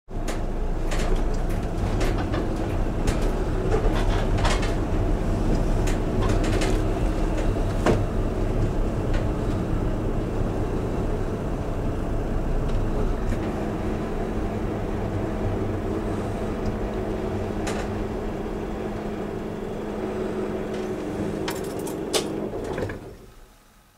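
Car engine running with road noise, heard inside the cabin as the car drives up and slows to a stop, with a few scattered clicks and knocks. The engine cuts off about a second before the end.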